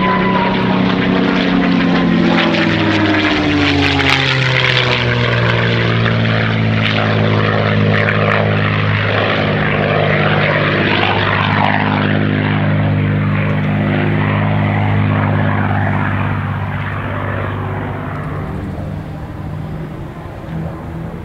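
P-51D Mustang's Rolls-Royce Merlin V-12 engine and propeller running at high power in aerobatic flight. The pitch drops over the first few seconds and then holds steady, and the sound fades over the last few seconds as the aircraft draws away.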